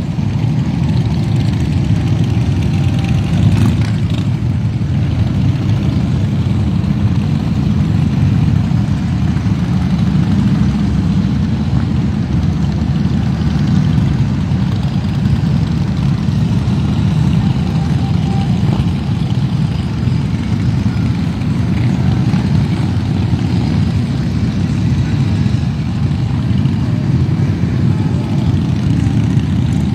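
Many motorcycle engines running together in a steady, dense low rumble with no single bike standing out.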